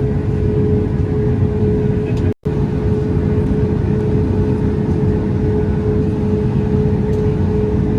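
Boeing 737 MAX 8 cabin noise: a steady, loud rumble with a constant hum, which drops out for an instant about two and a half seconds in.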